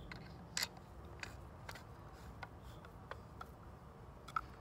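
Screwdriver turning a screw into the trolling motor's plastic head housing: a series of light clicks, about two a second, with two louder ones about half a second in and near the end.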